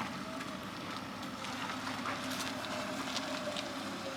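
A car moving off slowly, its engine faint, with light crackling and ticking throughout, like tyres over an icy driveway.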